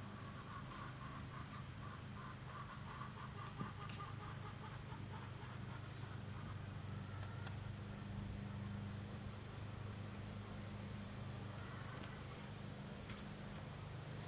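Quiet handling of a bent sapling and its wire ties on a plywood form: a few faint clicks and taps as wire is loosened and the sapling end is worked into place, over a steady low hum. A faint rapid trill runs through the first few seconds.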